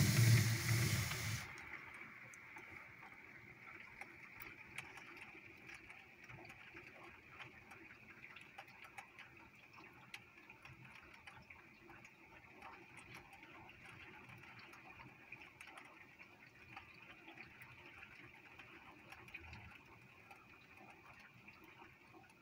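Rain heard from indoors through a closed window: a faint steady hiss with scattered light ticks of raindrops striking the glass. A loud rush of noise cuts off about a second and a half in.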